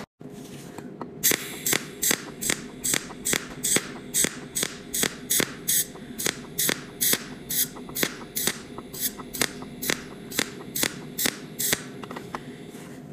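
Cold welding machine firing pulsed spot welds one after another around the rim of a nut head: a sharp snap at each pulse, about two to three a second, over a steady low hum. The snaps begin about a second in and stop near the end.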